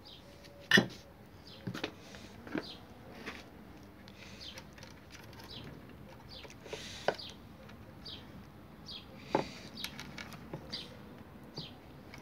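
Handling noises as red metal LED driver boxes and their wires are fitted into an open LED floodlight housing: scattered clicks, taps and light knocks, the sharpest a knock about a second in.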